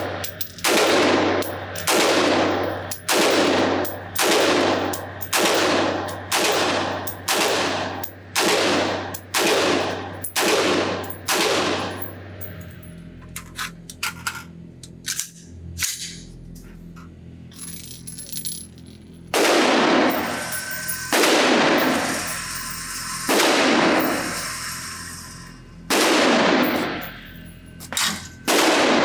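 Sig Sauer M400 AR-15 pistol with an 11.5-inch barrel firing 5.56 rounds, each shot echoing off the walls of an indoor range. A quick steady string of shots, a little over one a second, runs for the first twelve seconds. A pause with a few small clicks follows, then five more shots come a couple of seconds apart.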